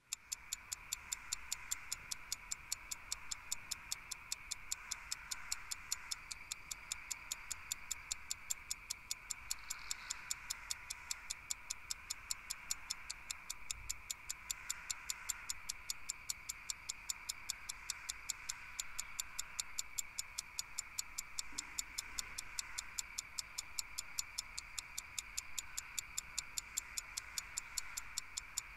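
A clock ticking, a few even ticks a second, over a faint steady high hum.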